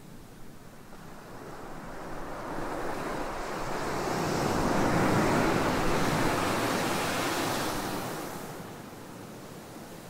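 Ocean surf on a sandy beach: one wave breaking and washing up the shore, its rushing hiss swelling over the first few seconds, loudest around the middle, then fading away near the end.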